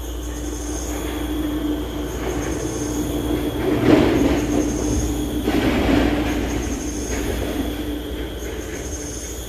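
A steady mechanical hum with a rushing noise that swells to its loudest about four to six seconds in, then fades away.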